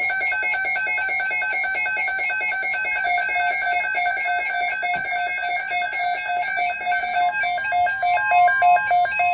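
NOAA Weather Radio alert tone for a Tornado Watch: a loud, buzzy electronic alarm, pulsing rapidly and evenly, that starts abruptly and holds steady.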